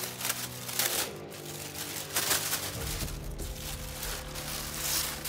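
Clear plastic bag crinkling and rustling in bursts as it is handled and pulled open, over steady background music.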